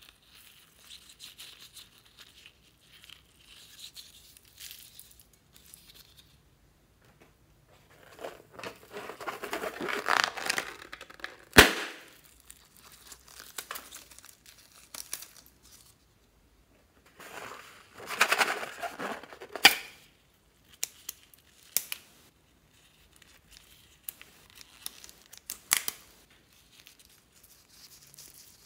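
Small rubber balloons being torn open and crumpled in the hands, a crinkly rubber rustle that swells in two louder spells, with several sharp snaps, the loudest about a third of the way in.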